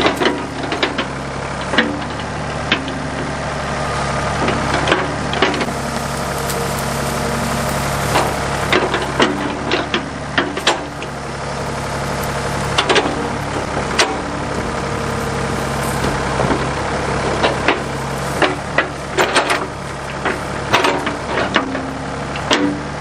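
Backhoe engine running steadily, with frequent sharp knocks and clanks scattered at irregular intervals as the machine works.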